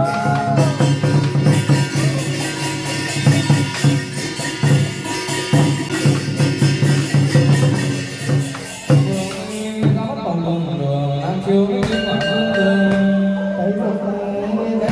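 Live Vietnamese chầu văn temple music: a small ensemble plays sustained pitched notes over busy, crackling percussion that thins out about two-thirds of the way through.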